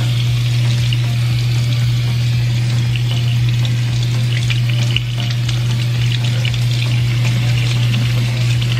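Kitchen faucet sprayer running over cherries in a plastic clamshell, the water splashing into a stainless steel sink with a steady hiss. A steady low hum runs underneath.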